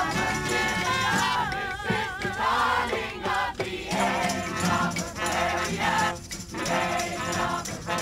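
Steel-string acoustic guitar strummed while a group of voices sings along, with a wavering held note about two seconds in.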